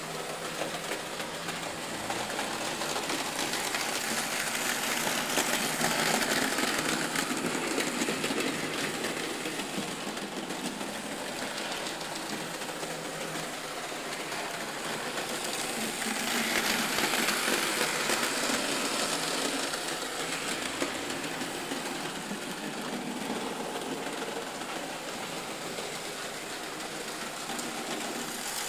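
Märklin model trains running on the layout: a continuous whir of small motors and rattle of wheels on the track. It swells louder twice, as trains come closer to the microphone.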